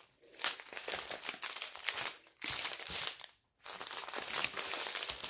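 Small plastic bags of diamond painting drills crinkling as a hand shuffles through a thick stack of them. The crinkling is irregular and stops briefly twice, about two and a half and three and a half seconds in.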